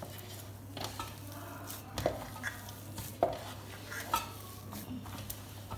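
Boiled potato mixture being mashed and kneaded by hand in a stainless steel plate: soft squishing with short scrapes and knocks against the steel about once a second, over a steady low hum.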